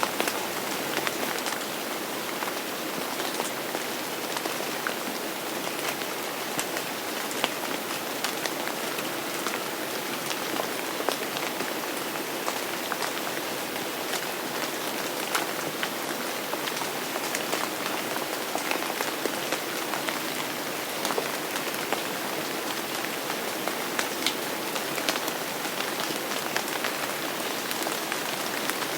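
Steady rain falling: a dense, even hiss with many sharp individual drops striking a surface scattered through it.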